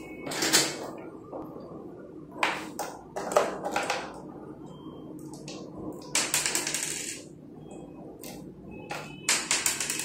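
Brass tubular door latch being handled and pushed into the edge bore of a door block: scattered clacks and knocks, a scraping slide about six seconds in, and a quick run of clicks near the end.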